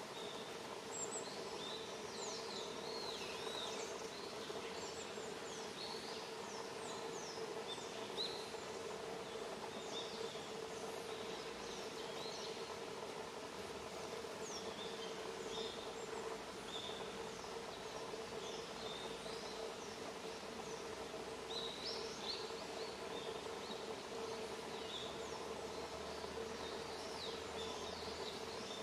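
Small birds giving many short, high chirps scattered all through, over a steady background rush with a faint constant hum.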